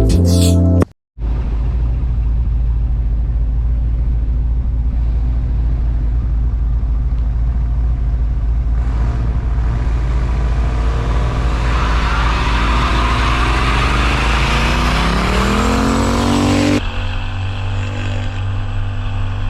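A vehicle engine running, then revving up with its pitch climbing steadily over several seconds under a rising rushing hiss. It cuts off abruptly near the end to a steadier engine sound.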